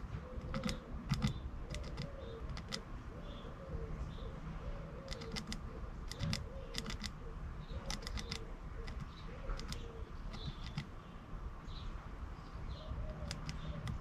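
Irregular sharp taps of a blue tit and then a great tit pecking at food in a half-coconut-shell feeder, with short high tit calls. A pigeon coos repeatedly underneath.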